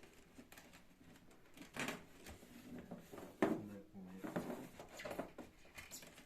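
Handling of a polystyrene-foam egg incubator: scattered light knocks, clicks and scrapes as its foam parts and lid are fitted, the sharpest knock about three and a half seconds in.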